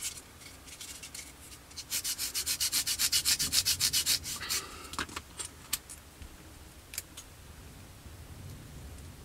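Small plastic model part being sanded by hand with a sanding stick, quick back-and-forth strokes for about two seconds to take down its height. A few light clicks follow.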